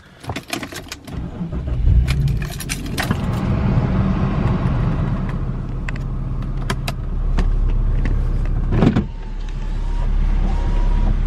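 Keys jangling and a few clicks, then a BMW E36 straight-six engine starting about two seconds in and running steadily after its head gasket replacement.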